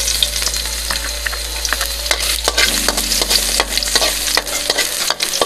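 Garlic sizzling in hot cooking oil in a pan as it is stirred and sautéed, a steady hiss dotted with many sharp pops and crackles.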